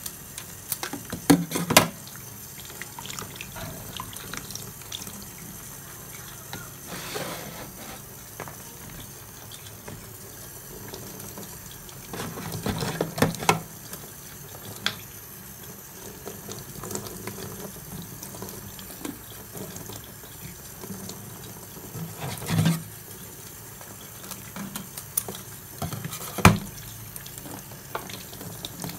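Steady sound of running water with scattered sharp clicks and knocks from kitchen scissors snipping raw prawns and from handling them in a plastic tub. The loudest knocks come in a cluster about a second and a half in, again around the middle, and once near the end.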